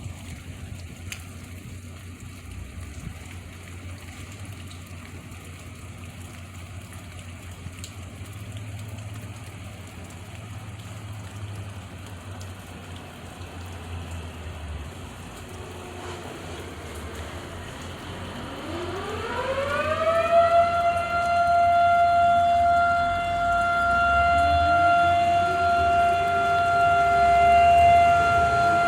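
Steady rain noise, then about two-thirds of the way in a Federal Signal outdoor tornado siren winds up, its pitch gliding upward over a couple of seconds to a loud steady wail; a few seconds later a second siren winds up beneath it to a lower steady tone. It is a routine weekly siren test, not a tornado warning.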